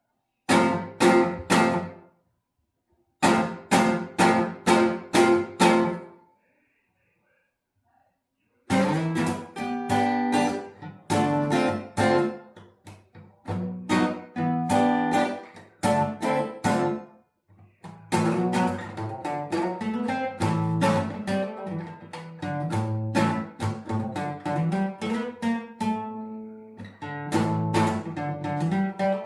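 Acoustic guitar being strummed. It plays short groups of chords broken by brief stops and a pause of a couple of seconds, then plays on continuously from about nine seconds in.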